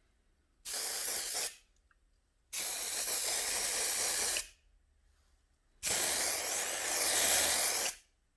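Aerosol can of gold spray paint spraying in three bursts: a short one of about a second, then two longer sprays of about two seconds each, each a steady hiss that cuts off sharply.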